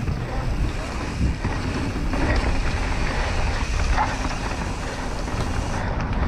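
Wind buffeting the microphone over the rumble of a Propain Tyee 29-inch enduro mountain bike rolling fast down a dirt trail, with a few small clicks and rattles from the bike.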